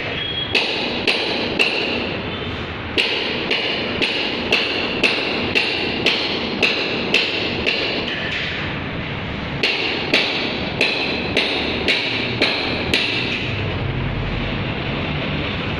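Sharp, slightly ringing knocks in an even beat of about two a second, pausing for about two seconds midway, over a steady background noise.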